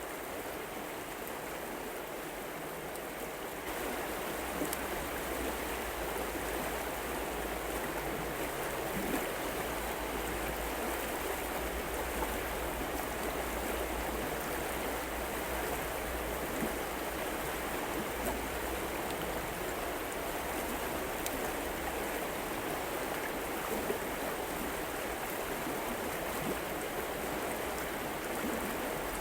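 Steady rushing of a flowing river, stepping up a little in loudness about four seconds in, with a few faint ticks over it.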